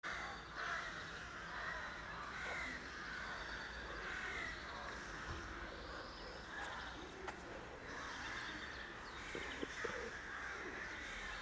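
Outdoor ambience full of birds chirping and calling, with a low steady background rumble and a couple of brief clicks.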